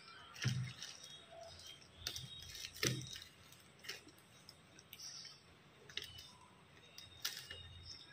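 Scissors cutting through a plastic courier mailer bag: faint, irregular snips and crinkles of the plastic, a few seconds apart.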